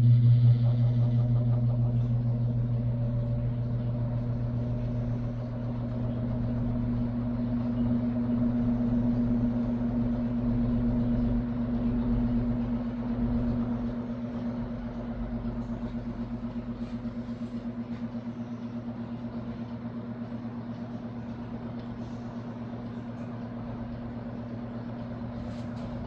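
Vintage Artic Aire box fan starting up and running, its electric motor giving a steady hum with a fast even pulsing as the blades turn. The hum is loudest as it comes on and settles slightly as it runs.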